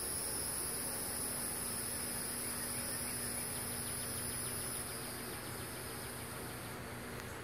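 A steady, high-pitched chorus of insects in the trees, easing a little about five seconds in.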